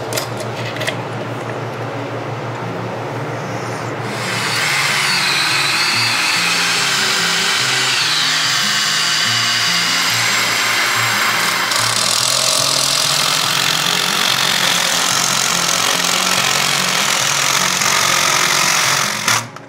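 Background music with a stepping bass line, growing louder about four seconds in, over the whirr of a cordless DeWalt driver screwing down a PVC toilet flange; it all cuts off suddenly near the end.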